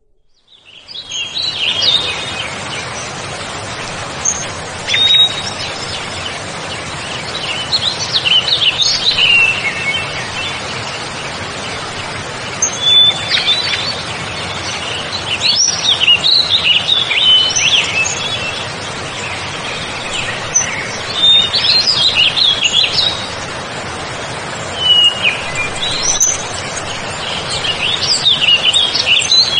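Small wild songbirds chirping and trilling on and off, over a steady background hiss.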